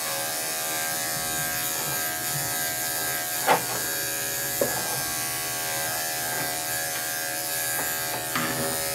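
Electric dog-grooming clipper buzzing steadily as it is run through a dog's coat, with a short click about three and a half seconds in.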